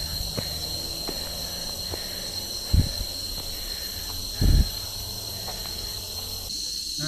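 Insects shrilling in one steady high-pitched drone, with two short, loud low thumps about three and four and a half seconds in.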